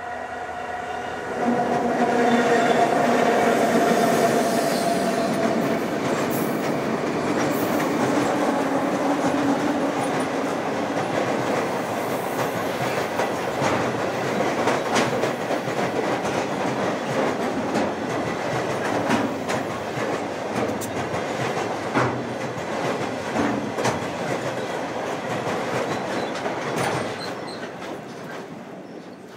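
Freight train led by diesel locomotives crossing a steel plate-girder bridge. The locomotives' steady hum comes first, then the wagons' wheels clatter over the rail joints and the steel deck, dying away near the end as the train moves off.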